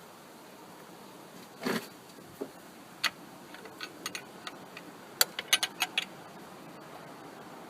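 Metal hand tools and parts clinking during engine work: a dull knock about two seconds in, a few scattered sharp clicks, then a quick run of five or six sharp metallic clicks about five seconds in.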